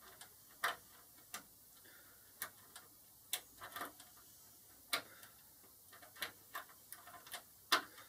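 Irregular small metallic clicks and ticks of a lock pick and tension tool working the pins inside a brass pin-tumbler door lock cylinder.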